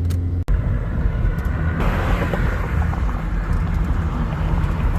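2014 GMC Acadia on the road: steady road and tyre noise over a low drone. It breaks off for an instant about half a second in, and a louder rushing noise comes in about two seconds in.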